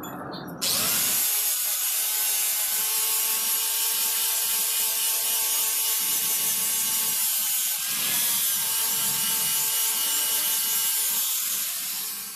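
Angle grinder starting up about a second in and grinding on a stainless steel motorcycle exhaust pipe, a steady high whine with a hiss. Its motor pitch dips briefly and recovers past the middle.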